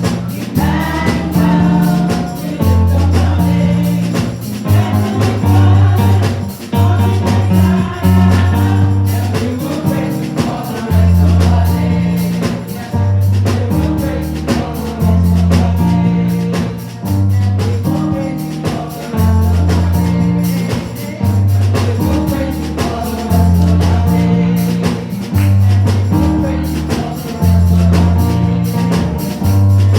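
Gospel music with singing, a heavy repeating bass line and steady percussion.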